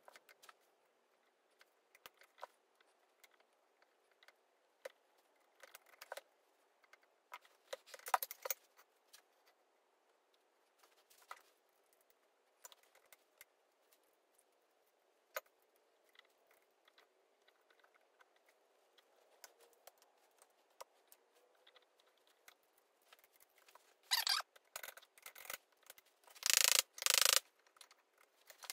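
Scattered small metallic clicks and clinks of hand tools and circlip pliers working on the shaft of a partly stripped Ford Type 9 gearbox, then a run of louder knocks near the end.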